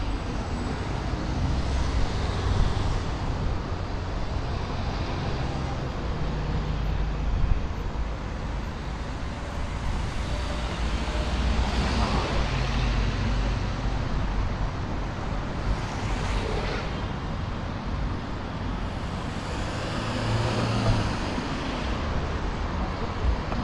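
Street ambience of motor traffic on a busy city avenue: a steady rumble of passing vehicles that swells several times as nearer ones go by.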